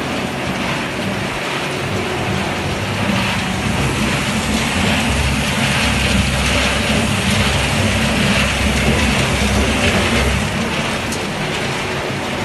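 Puffed-snack production line machinery running: a steady low hum and rumble under a continuous rattling hiss, a little louder in the middle.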